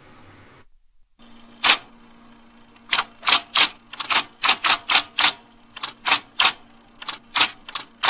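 Typewriter typing on paper: one key strike about two seconds in, then a quick, uneven run of key strikes.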